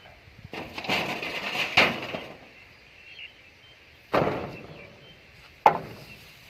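Debris of a collapsed field hut, corrugated zinc roofing sheets and timber, being pulled about: a scraping, clattering stretch, then a separate bang, and a sharp metallic bang with a short ring near the end.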